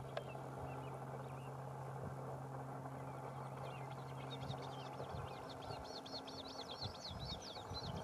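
Horned grebe chicks giving a fast run of thin, high peeping calls, starting about halfway through and growing busier toward the end, over a steady low hum.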